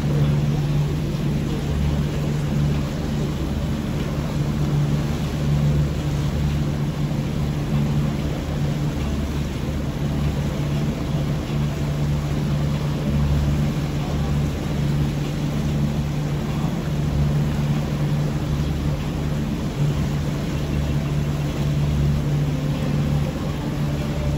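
Motorboat engine running steadily under way: a low, even drone over a wide steady hiss of water rushing past the boat.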